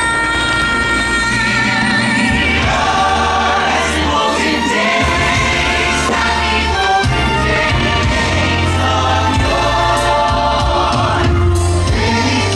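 Christmas music: a choir singing held chords over orchestral backing with a deep bass line.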